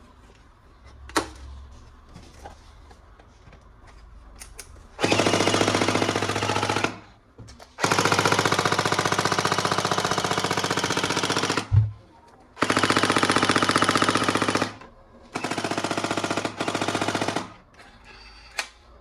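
Toy gun's electronic rapid-fire machine-gun sound, in four long bursts after some faint handling clicks, with a single thump between the second and third bursts.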